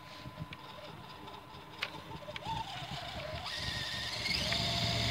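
Electric motor and gear whine of an HG P402 radio-controlled crawler truck driving through snow, faint at first with a few light clicks, then rising and growing louder from about three and a half seconds in.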